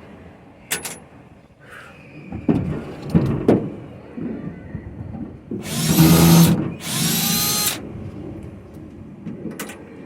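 Cordless drill backing screws out of a wooden bed frame: two short runs of about a second each, around six and seven seconds in, with knocks and clatter of handling before them.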